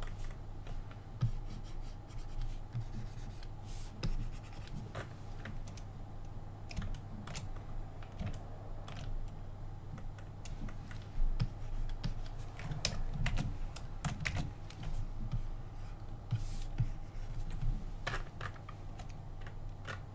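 Irregular scattered clicks and taps of a computer keyboard and mouse, over a steady low hum.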